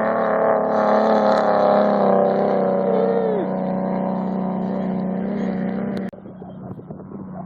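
Off-road race vehicle's engine running steadily and loudly, swelling over the first couple of seconds and then easing, until it cuts off abruptly about six seconds in, leaving a fainter, rougher noise.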